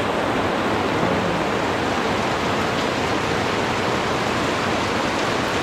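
Steady heavy rain, an even unbroken hiss of falling water.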